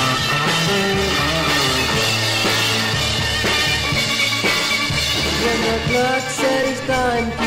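Rock music from a band playing an instrumental passage, with a steady beat; a wavering, sliding lead melody comes in about six seconds in.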